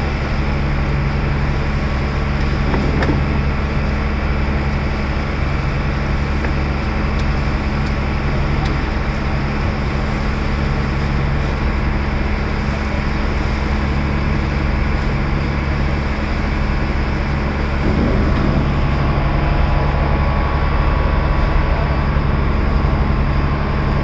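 Passenger boat's engine running at a steady low drone, with the rush of water and wind, growing a little louder near the end.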